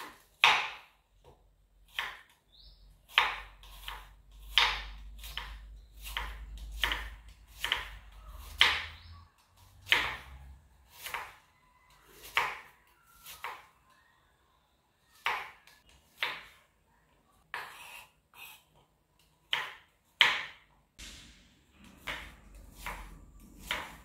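Kitchen knife slicing small red onions on a wooden cutting board: the blade knocks through onto the wood in sharp, irregular strokes, about one a second, some louder than others.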